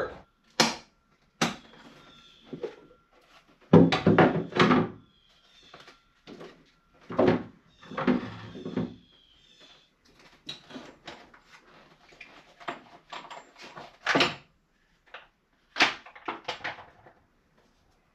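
Hand tools and engine parts clanking, clicking and rattling at irregular intervals, with a few louder clatters about four seconds in and again near the middle.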